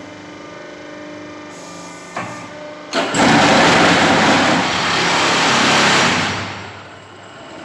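Hydraulic concrete block and paving block press running: a steady hum, then a sharp click about three seconds in and a loud rushing noise for about three and a half seconds that fades away.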